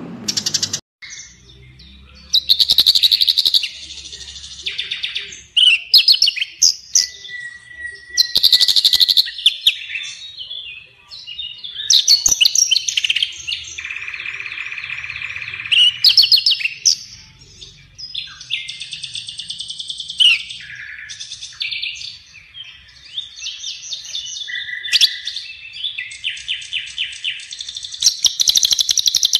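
Masteran bird-song compilation for training cage songbirds: a fast, varied run of chirps, rapid trills and whistled phrases, the segments starting and stopping abruptly as if spliced together.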